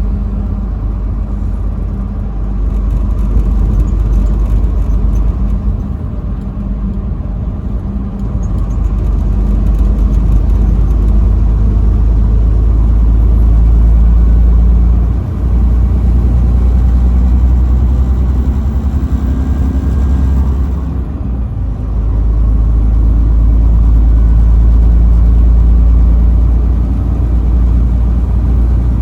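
Truck engine running at highway driving, a loud low rumble with the engine note shifting in pitch a few times and two brief dips in level, about halfway through and again later.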